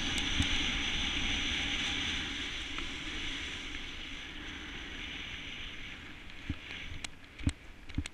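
Snowboard sliding over snow, a steady hiss from the board mixed with wind on the microphone, growing fainter from about halfway. Near the end come a few short knocks and thumps.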